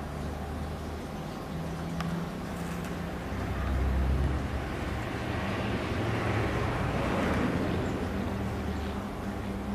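Road traffic: a low, steady engine rumble, with a passing vehicle's noise swelling a few seconds in and easing off near the end.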